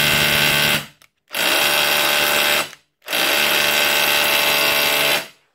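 Bosch GBH 18V-EC Compact SDS-plus rotary hammer drill running in three bursts, with short stops about a second in and again near three seconds, and stopping just before the end. With a new piston, O-ring and sealing grease fitted, its hammer action is working again.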